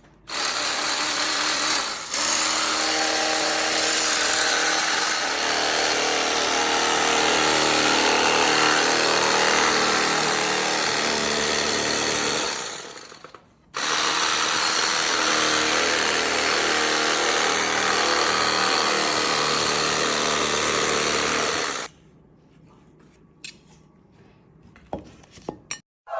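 Mighty Carver chainsaw-style kitchen cutter running steadily with a buzzing motor sound while cutting a cake. It runs for about twelve seconds, stops briefly, runs for about eight seconds more, then stops, leaving only a few small clicks.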